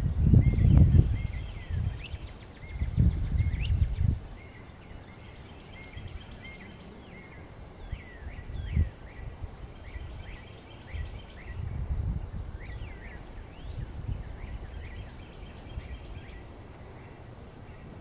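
Northern cardinal singing in the background: a long series of short whistled notes, many sweeping downward, mixed with chattering. Low rumbling noise, the loudest sound, fills the first four seconds, and a single short knock comes about nine seconds in.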